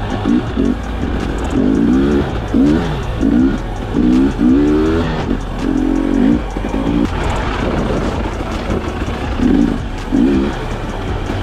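Enduro dirt bike engine revving, rising and falling in pitch in short pulls, with background music over it.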